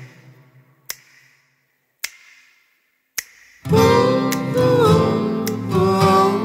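A low note dies away into near silence, broken by three sharp clicks about a second apart. About three and a half seconds in, an acoustic guitar comes in strumming chords, with a melody line that bends in pitch over them.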